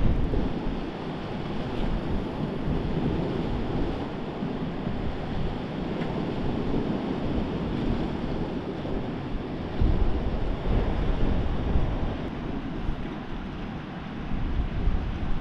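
Sea surf washing against rocks, with wind buffeting the microphone in low rumbling gusts, strongest about ten seconds in.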